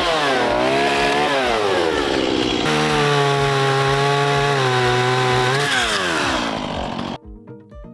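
Chainsaw running under load, its engine pitch sagging as it cuts, climbing back, holding steady, then dropping again before it cuts off suddenly about seven seconds in; soft plucked-guitar music follows.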